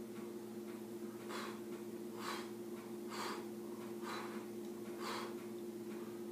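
Faint, short puffs of a person's breath, five in a row about a second apart, over a steady low hum.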